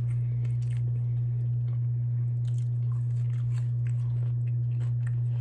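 Close-up chewing and biting of french fries, with soft crunching mouth sounds, over a steady low hum.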